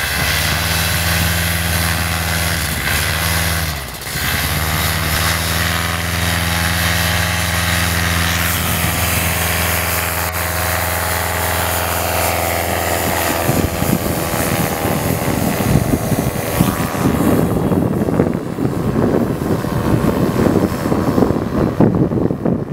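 Paramotor trike's engine and propeller running steadily, with a brief dip about four seconds in. About thirteen seconds in, the steady engine tone gives way to a fluttering wind noise on the microphone as the trike lifts off and climbs away.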